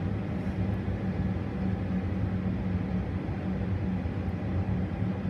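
Biological safety cabinet's blower fan running: a steady rush of air with a low hum.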